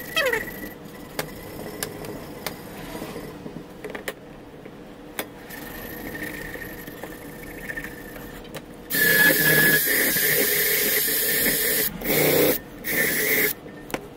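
Light clicks and scraping of hand work on a rusty steel rod held in a bench vise. From about nine seconds in comes the loudest sound: three bursts of a hissing shop tool with a steady high whine, the first about three seconds long and two shorter ones after it.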